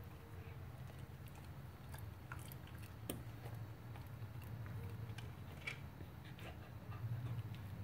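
An old dog chewing and crunching pieces of raw vegetable from a bowl, with many short, crisp crunches and clicks scattered throughout. A steady low hum runs underneath.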